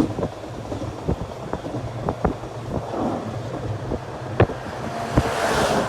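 Train running on the rails: a steady low rumble with scattered sharp clicks and knocks, and a rush of hissing noise building near the end.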